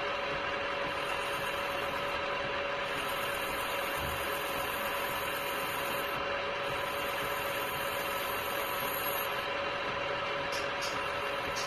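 Router bit spinning in a machine spindle and cutting the edge of a clear plastic cylinder: a steady whine over the hiss of the cut.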